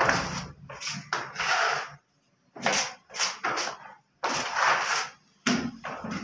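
Putty knives scraping as wall putty is worked: blade against blade and on the rim of the putty bucket, in a series of short scraping strokes with a couple of brief pauses.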